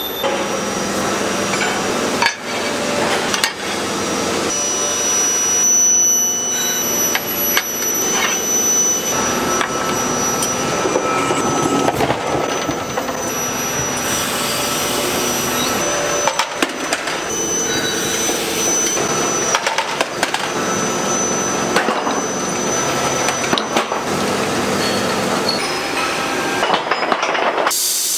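Bolt-making factory machinery running: a steady mechanical din with thin high whines and occasional knocks, changing abruptly several times as the sound moves from one machine to another.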